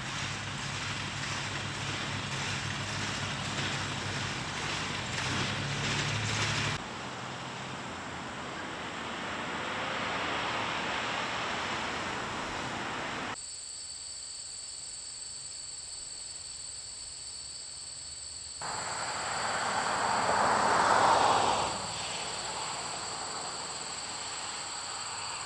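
Small John Deere tractor's engine running steadily, cut off abruptly about seven seconds in. Then outdoor ambience: a steady high insect drone from about halfway, with a swell of noise that rises and falls near the end.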